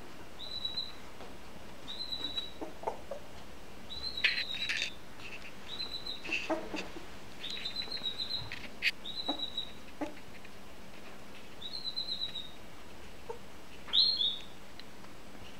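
Young Bouvier des Flandres puppy giving short, thin, high squeaks every second or two, the loudest near the end, with a few soft scuffs of paws on towels.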